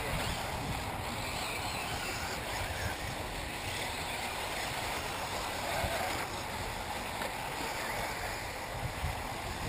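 Steady outdoor noise: wind rumbling on the microphone over the faint running of electric 1/8-scale off-road RC buggies on a dirt track.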